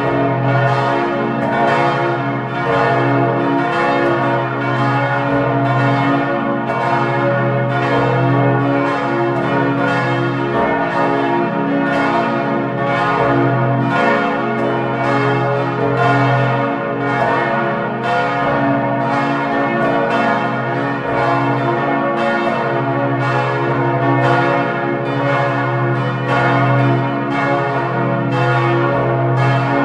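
Church bells ringing continuously, strokes recurring a little more than once a second over a steady low hum and long overlapping ring.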